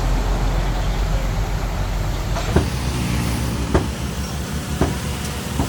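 Hitachi DX45M bulldozer's diesel engine running steadily, with four sharp knocks about a second apart in the second half.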